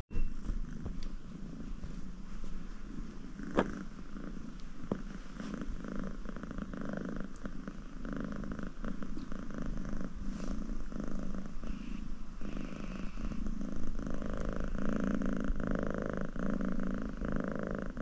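Domestic cat purring close by, a steady rumble that swells and eases with each breath, about once a second, a little stronger in the last few seconds. A couple of sharp clicks come about four to five seconds in.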